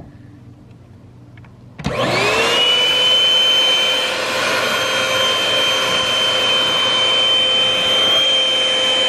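Handheld vacuum cleaner switched on about two seconds in, its motor whine rising quickly to a steady pitch and then running steadily while it sucks up the metal flakes left around a freshly cut hole in the sheet-metal van roof.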